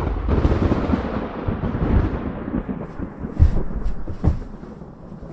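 A long rumble of thunder that slowly dies away, with a few heavier low booms partway through.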